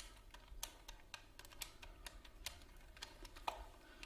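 Telephone being dialled: about a dozen faint, irregular clicks, the loudest near the end.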